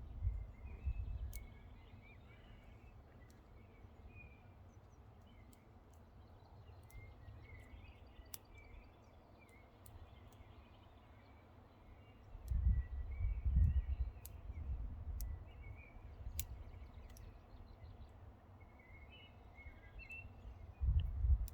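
Euphorbia rigida seed pods bursting in the sun: scattered sharp, high-pitched clicks and pops at irregular intervals, some twenty in all. Low rumbles about twelve seconds in and again near the end are the loudest sounds.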